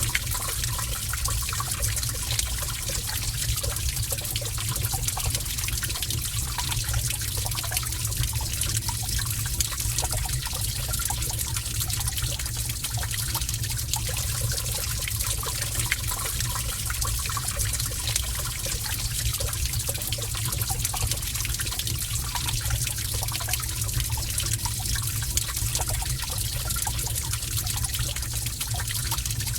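Gentle running water trickling steadily in a cave, an even wash with a low rumble underneath.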